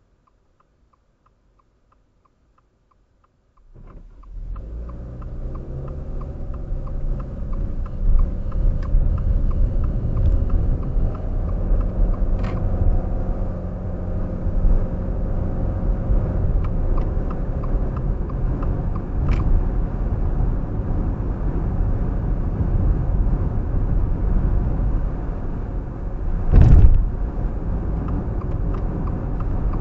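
Car turn-signal indicator ticking evenly in a quiet cabin, then a steady low rumble of road and engine noise as the car pulls away, about four seconds in, and keeps driving. One heavy thump from a bump near the end.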